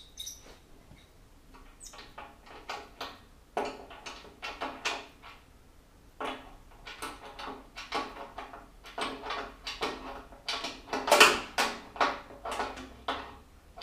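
Irregular metal clicking and scraping as a PTFE-wrapped brass radiator valve tail is screwed into the radiator, with a louder cluster of clicks about eleven seconds in.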